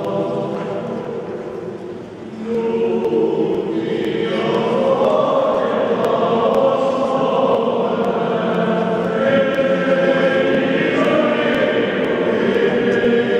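A group of voices singing Byzantine-rite liturgical chant together in long held notes. The singing thins and drops in level about two seconds in, then swells fuller and louder.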